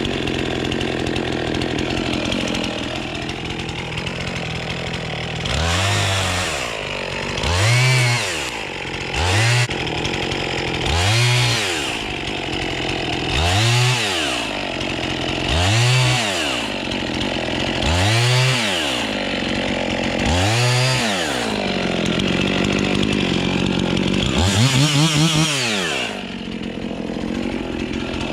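Chainsaw engine running, then revved up and let back down about nine times in a row, roughly every two seconds, as the saw works along red oak logs being marked and cut to firewood length.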